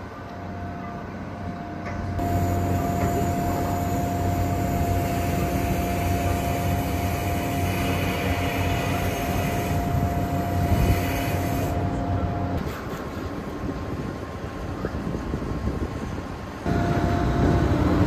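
Heavy construction machinery running steadily: an engine drone with a constant whining tone. The sound changes abruptly about two seconds in, and again twice near the end.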